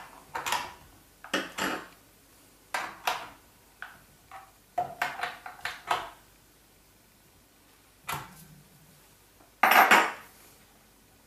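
Metal tool clicking and clinking against the bar nuts and chain tensioner of a Stihl MS150 TC E chainsaw as the chain is tensioned, in irregular small clinks and rattles, with a louder clatter about ten seconds in.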